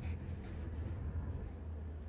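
A steady low-pitched hum, the 'strange hum' recorded for the video, with a few faint ticks above it near the start.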